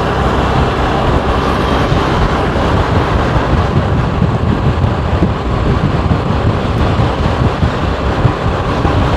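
Strong wind buffeting the microphone of a camera on a moving motorbike, a loud steady rumble, with the motorbike's road noise mixed in.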